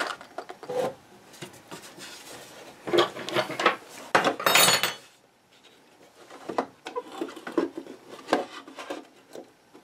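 Knocks, clinks and scraping of an old tube radio being handled as it is taken apart: its metal chassis and Bakelite cabinet rubbing and bumping, busiest in the middle of the stretch.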